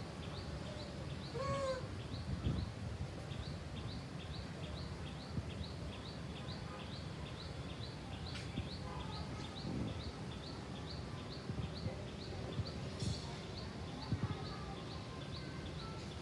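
A bird repeating a short, high, falling chirp about two to three times a second, over a steady outdoor rumble. A single short pitched call sounds about a second and a half in.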